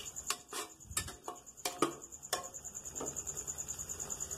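A steel spatula scrapes and taps against the inside of an aluminium pressure cooker several times in the first couple of seconds while masala is stirred. A cricket chirps in a rapid steady pulse throughout, most prominent in the second half.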